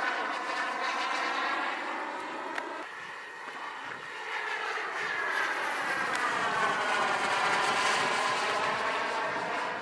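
Model jet's K-140 turbine engine whining in flight, its pitch sliding down and back up as the jet passes, getting louder about two-thirds of the way through.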